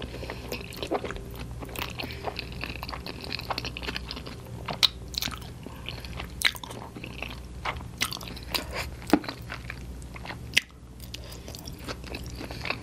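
Close-miked chewing of fettuccine pasta, with irregular wet mouth clicks and smacks.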